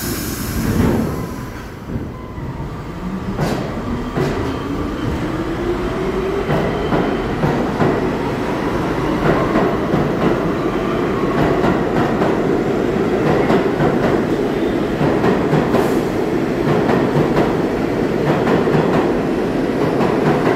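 R62A subway train pulling out of the station. The traction motors give a rising whine as it accelerates over the first several seconds. It then settles into a steady rumble with the clatter of wheels over rail joints as the cars pass. A brief burst of noise comes right at the very start.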